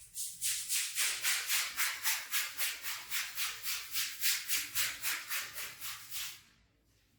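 Stiff brush scrubbing a rug with fast, even back-and-forth strokes, about four a second. The strokes stop about six and a half seconds in.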